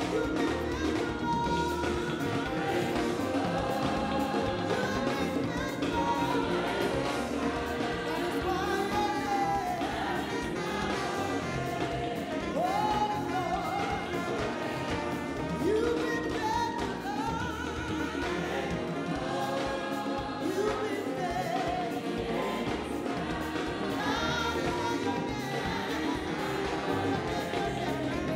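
Large gospel choir singing, backed by a live band with drum kit and electric guitar.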